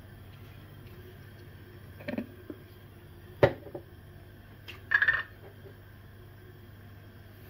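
Aluminium cooking pot and lid knocking and clinking against metal as they are handled on a gas hob: a few separate clanks, the sharpest about three and a half seconds in, then a brief brighter clatter.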